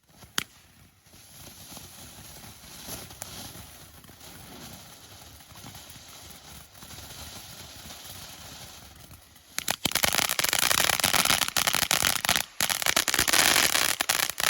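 Sassy Cat firework fountain spraying sparks: a steady hiss with crackle, growing much louder and denser about ten seconds in. There is one sharp pop just after the start.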